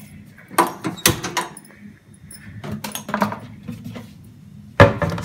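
Sharp knocks and clatters of metal cookware being handled at the stove, a few about a second in, more around three seconds, and the loudest near the end.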